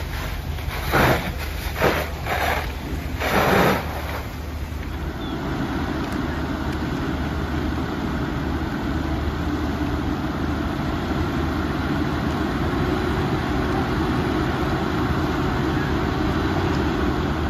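Fire engines running steadily with an even drone. Near the start there are four short, loud rushes of noise.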